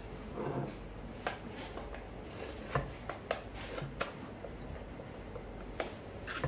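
Hands working dough in a glass mixing bowl on a wooden board: scattered light knocks and clicks as the bowl is tilted and turned on the board, with soft rubbing of the dough.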